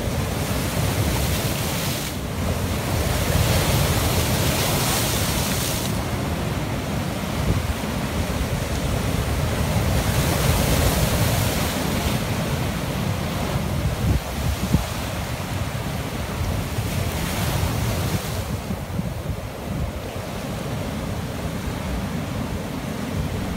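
Rough sea breaking and washing over a rock breakwater, a continuous surf that swells into louder crashes several times. Wind buffets the microphone throughout.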